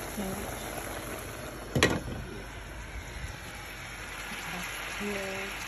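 Pot of water with cut cabbage boiling on the stove, a steady bubbling hiss, with one sharp knock about two seconds in.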